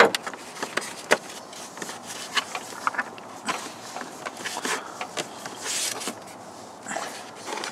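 Plastic air filter housing cover of a Tesla Model S being pressed and fitted into place by hand: scattered sharp clicks, taps and rubbing of hard plastic, with a brief scrape about six seconds in.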